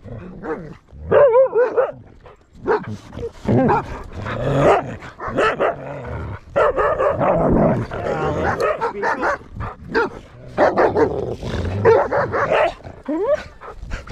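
Dogs barking and growling up close in repeated bursts, the rough noise of dogs at play.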